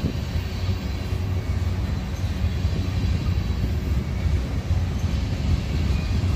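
Union Pacific mixed freight train rolling past, its wheels on the rails making a steady low rumble.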